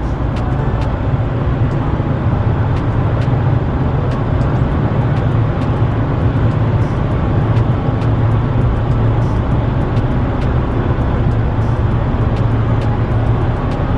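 Steady road and engine rumble heard inside the cabin of a moving car, with faint ticks about twice a second.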